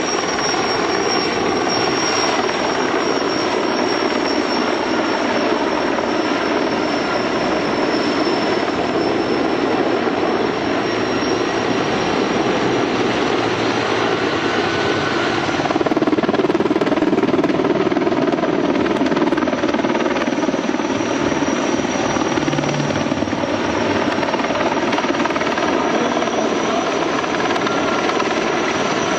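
Large firefighting helicopter, a Sikorsky S-64 Air-Crane, flying over: a steady rotor and turbine drone with a thin high whine, growing somewhat louder a little past halfway.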